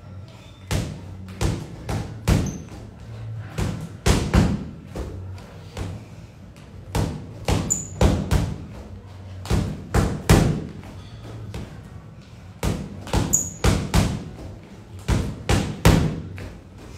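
Boxing gloves punching a freestanding heavy bag: repeated thuds in quick flurries of a few punches each, with short pauses between flurries.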